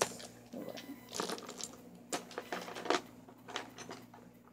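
Small plastic toy figures being rummaged and handled: a string of irregular sharp clicks and knocks, about seven clear ones, with rustling between them.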